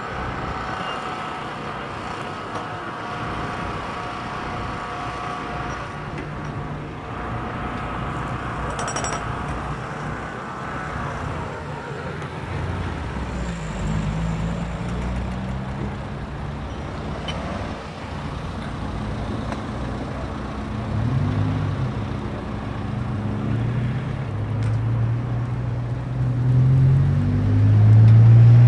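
Road traffic on a street: motor vehicles driving past, their engines rising and falling as they pass. The passes get more frequent in the second half, and the loudest comes at the very end. A steady whine sounds through about the first ten seconds.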